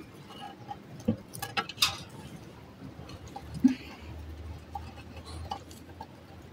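Metal shovel scraping and clinking against dirt and concrete blocks as it rakes eggs out of a nest: a few scattered scrapes and clicks, the sharpest about two seconds in, with a single knock near the middle.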